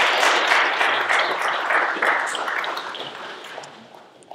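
An audience applauding, loudest at first and dying away over about three seconds.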